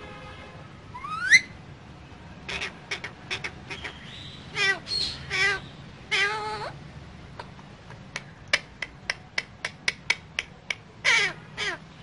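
Alexandrine parakeet calling: a rising whistle, then a string of short squawks, a run of sharp clicks about four a second, and two falling calls near the end.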